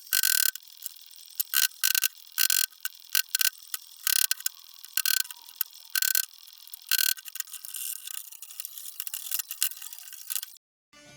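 A run of irregular sharp clicks and short noisy bursts, some a fraction of a second long, with no low end at all.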